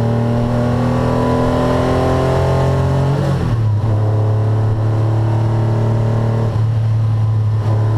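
The 1981 Porsche 911 SC's air-cooled flat-six is pulling hard under acceleration, heard from inside the cabin, its note rising steadily. About three seconds in, an upshift drops the pitch, and the engine pulls again. The note changes once more near the end.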